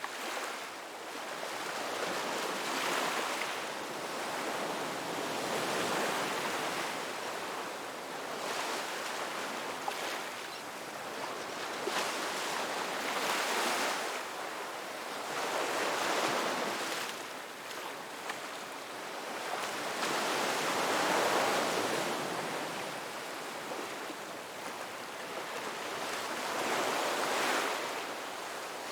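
Ocean waves breaking on a beach, the surf swelling and ebbing every three to four seconds.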